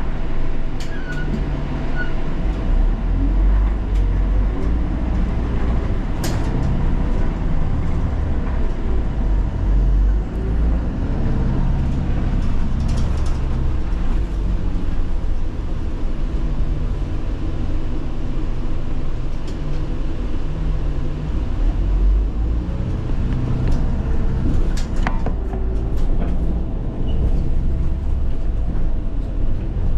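Route bus travelling on the road, heard from inside the cabin: a steady low engine and road rumble, with a few sharp rattles.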